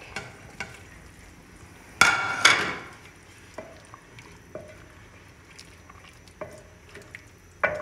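Raw chicken pieces slid off a ceramic plate into a metal pot of simmering masala, with one loud ringing scrape of the plate on the pot about two seconds in. Then a wooden spoon stirs the chicken into the liquid, knocking lightly against the pot a few times.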